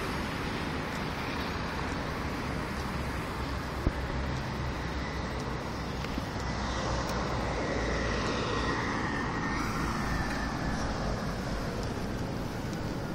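Steady outdoor road traffic noise with a strong low rumble, a single sharp click about four seconds in, and a faint whine that falls slightly in pitch in the middle.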